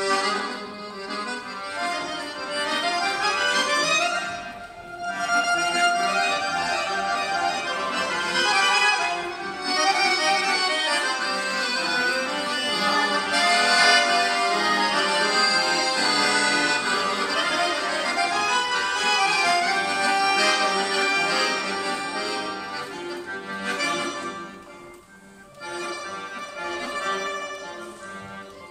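Piano accordion played solo, a melody over chords, growing softer in the last few seconds.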